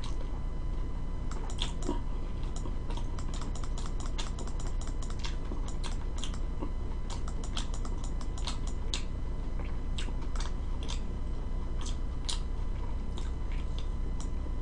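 Close-up chewing of pizza: irregular soft clicks and smacks from the mouth, over a steady electrical hum.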